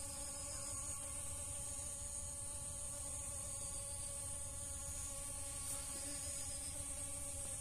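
Honeybees buzzing at a dragon fruit flower: a steady, even buzz that keeps going without a break.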